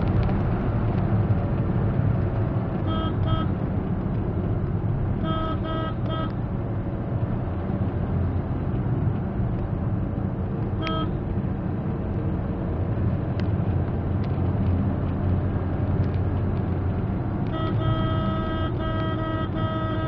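Steady engine and road noise inside a moving Maruti Suzuki Swift's cabin, with short vehicle-horn toots: two about three seconds in, a quick run a couple of seconds later, a single brief one midway, and a long series of rapid toots near the end.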